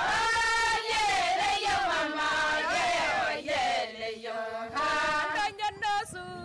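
A group of Ilchamus women singing a traditional chant together in long, held phrases, with short breaks between them.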